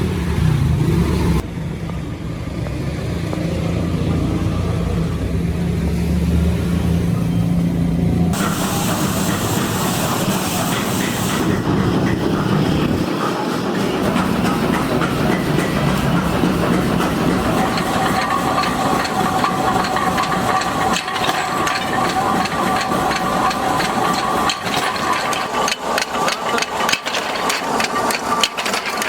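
Workshop machinery running: a low steady hum for the first several seconds, which gives way abruptly to a steady hiss. Later a steady whine joins it, and rapid clicking comes near the end.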